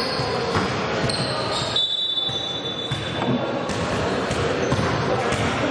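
Basketball game in a gym hall: the ball bouncing on the court amid echoing players' voices, with a short high-pitched squeal about two seconds in.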